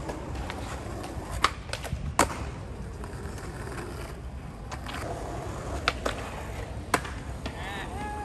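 Skateboard wheels rolling on concrete, with several sharp clacks of the board popping and landing during tricks; the loudest clack comes about two seconds in.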